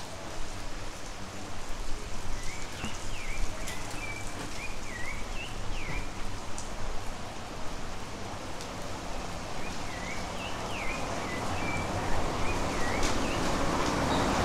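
Steady rain falling, with scattered drop ticks. A bird sings a short warbling phrase about two seconds in and again about ten seconds in, and a louder rushing noise builds near the end.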